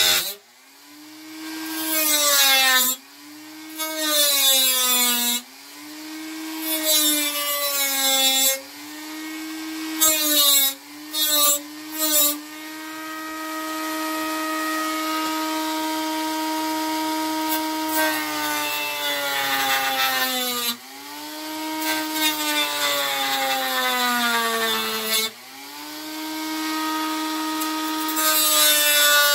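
Handheld rotary tool with a cut-off wheel whining at high speed as it cuts away the broken plastic hinge tab on a turntable's clear plastic dust cover. The whine dips in pitch and loudness and climbs back several times, with a few short bursts near the middle.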